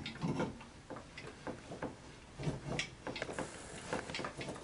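Light, irregular knocks and ticks of a WEN 4208 benchtop drill press head being worked down onto its steel column, metal against metal, as it seats.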